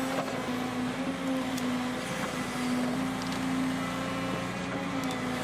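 Engine of a heavy forestry machine running steadily: a constant hum that holds one pitch, with a noisy mechanical haze around it.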